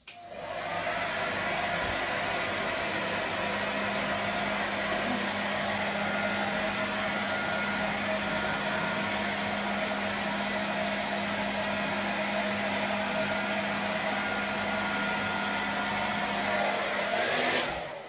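Hand-held hair dryer running steadily, a continuous blowing rush with a steady motor whine. It switches on at the start and cuts off near the end.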